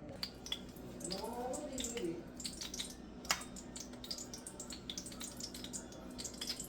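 Curry chicken cooking in a hot pot: faint scattered pops and crackles that grow busier toward the end, over a steady low hum.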